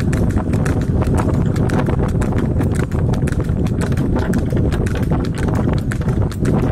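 Water buffalo's hooves clip-clopping on a tarmac road as it pulls a cart, a quick run of sharp hoof strikes over the steady low rumble and rattle of the cart's wheels.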